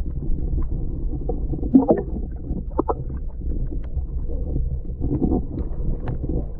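Underwater sound from a submerged camera: a muffled low rumble of moving water, with a few faint clicks and short squeaky sounds about two and three seconds in.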